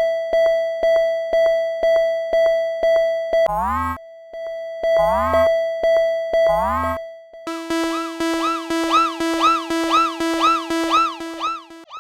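Japanese railroad crossing alarm ringing, a sharp electronic clang about twice a second, broken by rising pitch sweeps about 3.5 s, 5 s and 6.5 s in. From about 7.5 s it changes to a low pulsing tone under higher tones that swoop up and down about twice a second.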